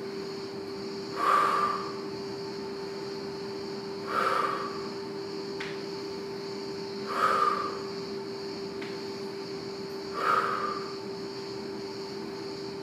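A woman breathing out hard through the mouth in time with an exercise, four breaths about three seconds apart. A steady hum runs underneath.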